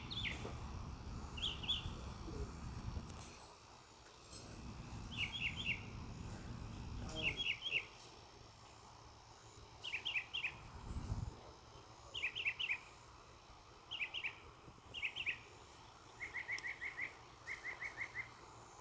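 A bird calling in short groups of three or four quick high chirps, repeated every second or two, ending with two runs of four or five evenly spaced notes. A low noise runs under the first few seconds and again for a few seconds a little later.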